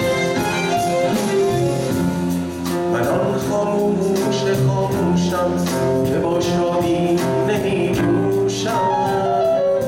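Live band playing a Persian pop song, with a male voice singing over it.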